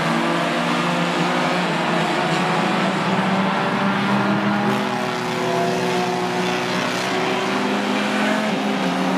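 A pack of compact stock cars racing, several engines running at once. Their pitches shift slightly up and down as the cars circle the track.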